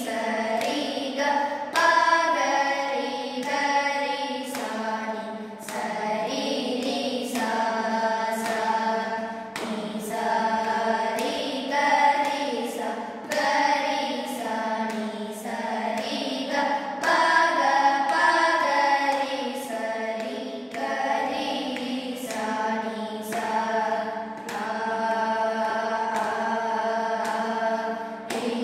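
A group of students singing a Carnatic vocal lesson together over a steady drone note, with hand claps about once a second keeping the tala.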